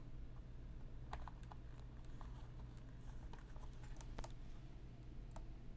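Faint scattered light clicks and taps from hands working on an opened laptop, about eight in all and unevenly spaced, over a low steady hum.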